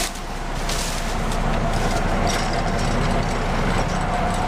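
Case IH 7130 combine running steadily: a constant machine drone with a thin steady whine on top.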